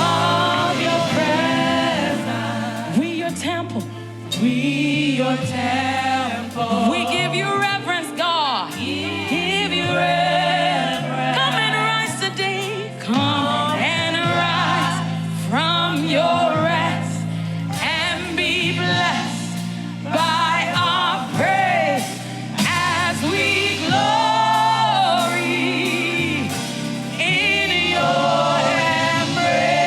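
Live gospel worship music: singers with a choir sing wavering, sustained lines over a band whose bass moves in steady steps.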